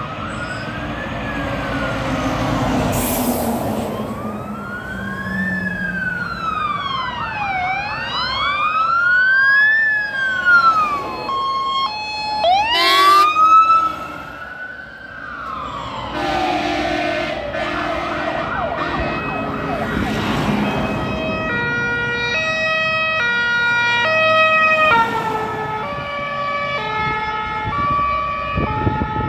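Fire engines' sirens on an emergency run: rising-and-falling wail sirens, more than one at once, then a loud blast and a siren winding up as a truck passes close about halfway through. The rest is the multi-tone fire-engine horns (trąby), switching between steady pitches every second or so.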